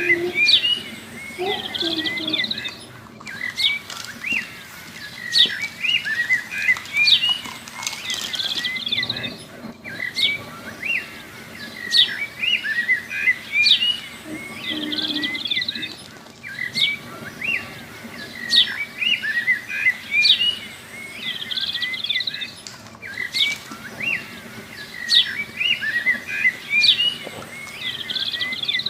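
Small birds chirping and singing in quick, varied calls. It is a looped recording that repeats about every six and a half seconds, with a brief break at each repeat.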